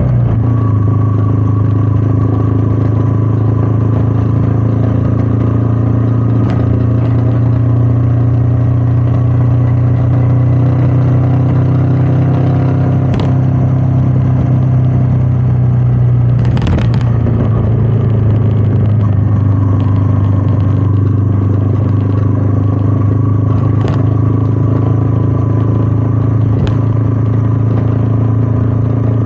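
Royal Enfield Meteor 350's single-cylinder engine running steadily under way, with wind rushing past. The engine note rises for a stretch around the middle and settles back lower, and there are a few brief clicks.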